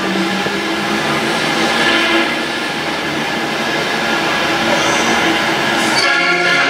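Loud, steady rumbling and grinding effects with squealing tones, played over a stunt show's loudspeakers as the temple set's idol traps move. Music comes in near the end.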